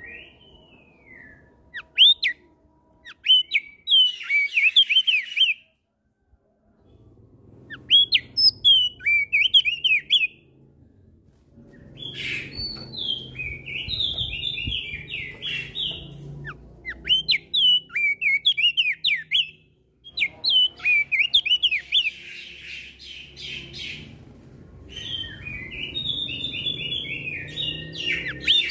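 Crested white-eye (opior jambul) singing in repeated bouts of fast, high, twittering chirps, with short pauses between bouts, in a back-and-forth exchange with other birds.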